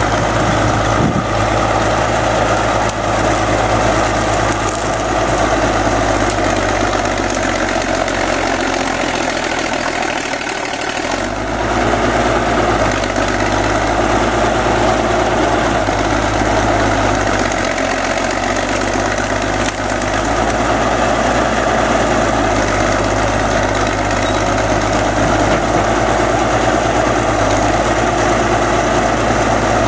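Caterpillar D8 crawler bulldozer's diesel engine running steadily as the dozer pushes into trees and brush, a dense low drone. The low rumble drops away briefly about ten seconds in, then returns.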